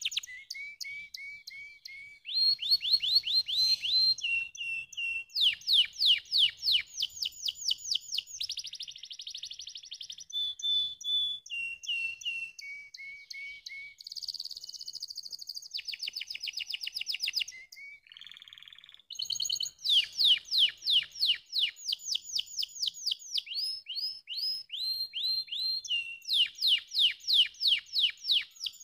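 Canary singing a long song of rapid trills: phrase after phrase of fast repeated falling notes, each phrase at its own speed and pitch, with a brief break about two-thirds of the way through.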